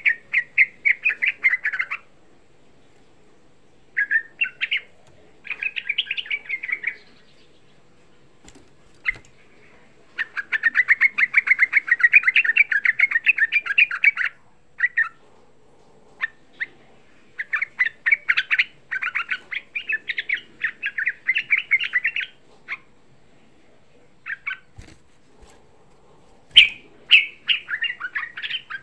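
Yellow-vented bulbul (trucuk) singing its rapid, chattering rolling song in separate bursts of one to four seconds with short pauses between. The longest burst comes about ten seconds in.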